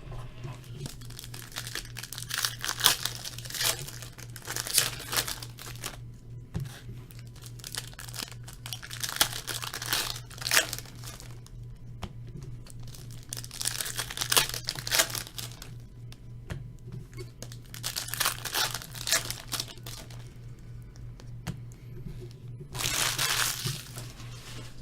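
Trading card packs being torn open and their wrappers crinkled, in repeated bursts of rustling and tearing over a steady low hum.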